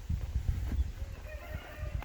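A farm animal calling: one drawn-out, pitched cry starting about halfway through and still sounding at the end, over low irregular rumbling on the microphone.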